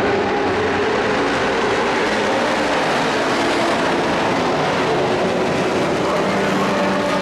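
A pack of dirt-track race trucks running at speed around the oval, their engines blending into one loud, steady drone with several engine tones shifting slightly in pitch.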